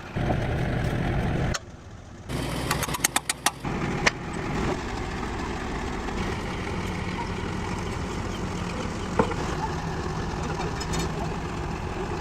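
A few abrupt cuts between noisy shots, with a quick run of sharp knocks, then an engine running steadily at idle.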